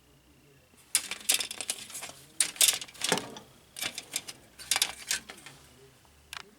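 Plastic model-kit sprues clattering and rattling as they are handled, with bursts of sharp clicks in quick succession over several seconds.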